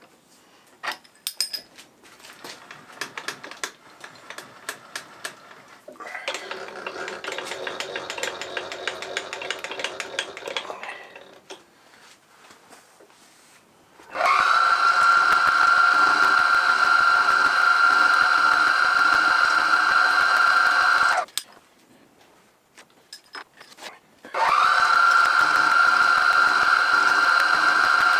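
Milling machine spindle running with a carbide end mill squaring the end of a small mild steel block. It starts with a few clicks, then a quieter running stretch, then twice a loud steady whine that holds one pitch for several seconds and stops abruptly between the two runs.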